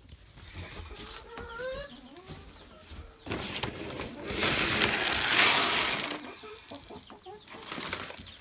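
Chickens clucking, and about three seconds in a scoop of chicken feed poured out in a rush of noise that lasts about three seconds.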